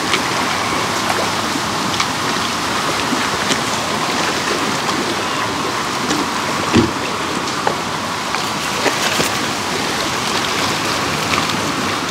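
Choppy lake water sloshing and lapping against a boat ramp, floating dock and boat hull: a steady rushing wash with small splashes and knocks, and one louder thump about seven seconds in.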